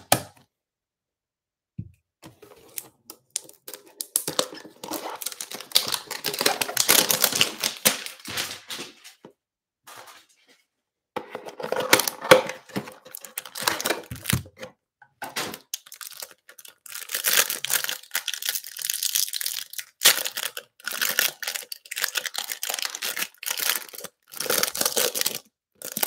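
A cardboard trading-card hanger box being torn open, then the plastic wrapper around its stack of cards crinkling and tearing as the cards are pulled out, in rustling bursts with short pauses.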